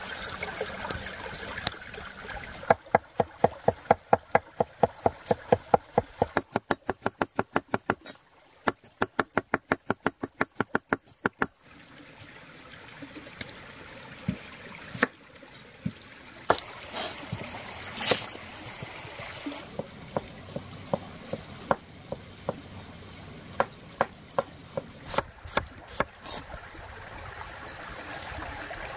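A knife chopping red onion on a wooden cutting board: a fast, even run of strokes, about four a second, with a short break midway, then slower, scattered single cuts. A stream trickles steadily underneath.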